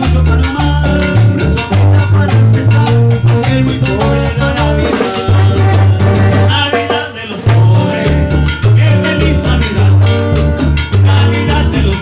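Live Latin tropical dance band playing, with a stepping bass line, drum kit and horns.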